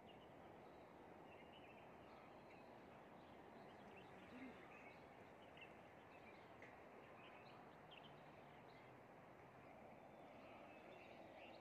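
Near silence: faint outdoor background hiss with a few faint, scattered bird chirps.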